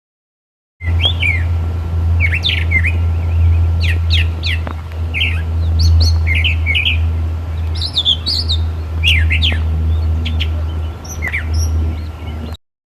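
Songbirds chirping: many quick high chirps and short down-slurred notes in loose clusters with brief pauses, over a steady low hum and a faint steady high tone. The sound starts abruptly about a second in and cuts off abruptly near the end.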